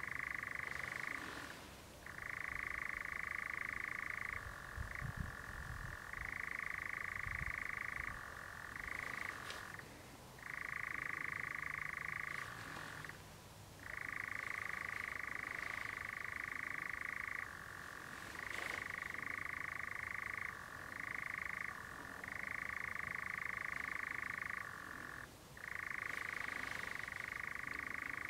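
European nightjar churring: a long, steady mechanical trill that runs on with a few brief pauses and switches now and then between a higher and a lower pitch.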